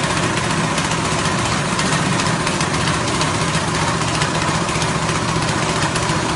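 Small 6.5 hp petrol engine running steadily, driving a rice-husk grinding mill.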